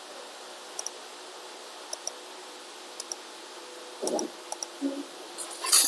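Faint paired clicks repeating about once a second, with a brief rustle about four seconds in and a loud burst of noise at the very end.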